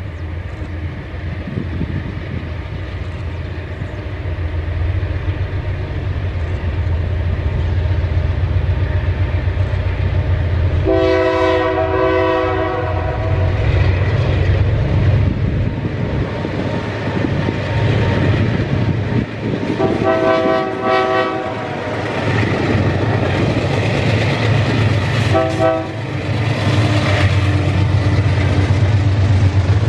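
Five diesel-electric freight locomotives (GE AC44i, C36-7 and SD38M) working at full power up a steep grade, their engines a deep steady drone that grows louder as they approach. The locomotive horn sounds a long chord about eleven seconds in, another about twenty seconds in, and a short blast around twenty-five seconds, after which the loaded freight cars rumble past on the rails.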